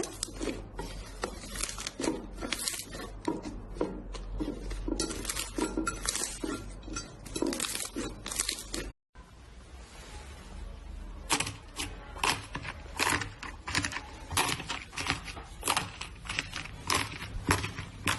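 Slime being squeezed and pressed by hand, a quick series of wet squelches and crackles. After a brief break about nine seconds in, a second slime gives sharper, crisper crackling pops.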